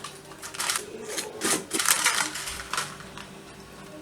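Quick, irregular scuffing or rustling noises, a few a second, over a low steady hum.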